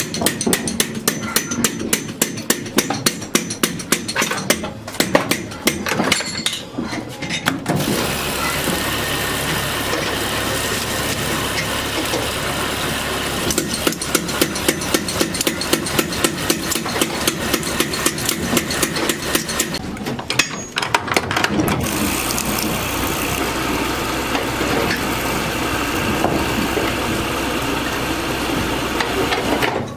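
Workshop sounds: rapid, evenly spaced hammer strikes, about four a second, give way about eight seconds in to a machine running steadily with a low hum. Fainter strikes come back through the middle, and the machine runs on steadily near the end.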